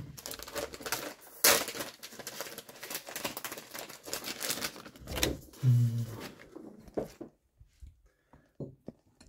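A pack of mandolin strings being opened by hand: its packaging crackles and rustles in quick clicks for about five seconds. A short low hum follows a little past the middle, then a few small clicks and taps.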